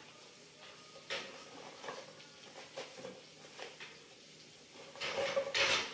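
Kitchen handling sounds: a few light knocks and clatters, then a short, louder rush of noise near the end.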